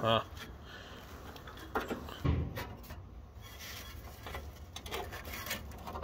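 Rubbing and scraping of a hand working on the six-cylinder engine of a 1956 International S-160 as it is turned over by hand, with a few light clicks and a dull clunk about two seconds in. The engine turns, so it is not seized.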